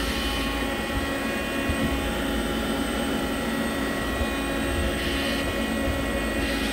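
Hardinge GT 27SP CNC gang-tool lathe running a program loop with its live milling tool spinning: a steady machine hum with several steady whining tones over a low rumble.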